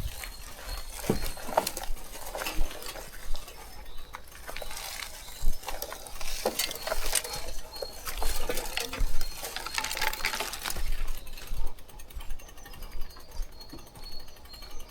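E-bike rattling and clicking as it rides over rough forest ground, with low wind rumble on the microphone. A faint high whine comes and goes.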